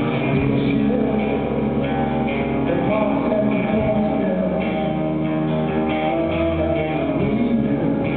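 Stoner rock band playing live: electric guitars, bass and drums in a full, continuous wall of sound.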